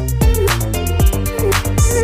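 Background music with a steady electronic hip-hop beat: bass line, drum hits and hi-hats.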